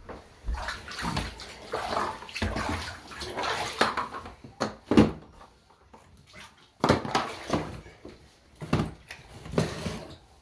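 Bathwater sloshing and splashing in a tub as a hen is held and washed by hand, in irregular splashes with the loudest about five seconds in.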